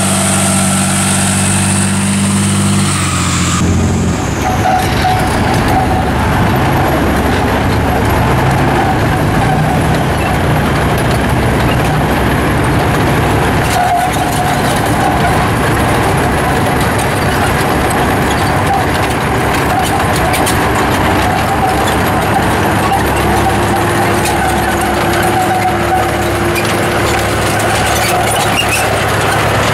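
An M60 tank's diesel engine running steadily, then, after an abrupt change about four seconds in, a Soviet IS-3 heavy tank's V12 diesel running rough and loud as the tank drives on its tracks.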